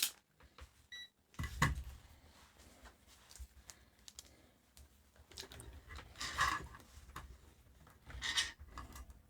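Clicks, knocks and rustling of tools and objects being handled and set down on a workbench, with a dull thump about one and a half seconds in and two short rustling spells in the second half.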